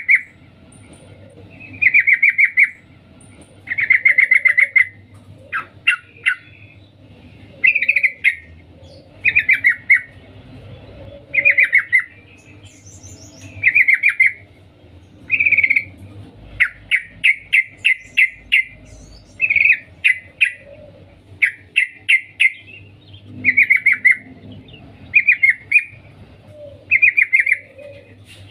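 Yellow-vented bulbul (trucukan) giving its rapid chattering "cuk cuk" call in short bursts about every two seconds, with a quicker run of separate notes near the middle. This is the call a female uses to summon a male.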